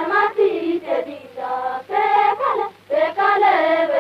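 High voices singing a Gondi folk song of the Maria Gonds in short phrases with sliding pitch and brief breaks between them. It is an archival field recording, dull in the top end, with a steady low hum underneath.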